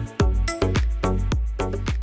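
Background music with a steady beat: drum hits several times a second over a bass line and pitched notes.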